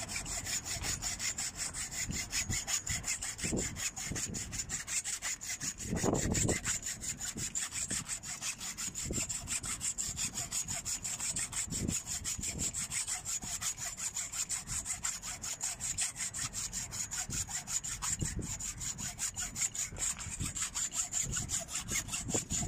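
Hacksaw cutting through a thick 120 mm power cable's plastic sheath, in steady, rapid back-and-forth strokes with an occasional low knock.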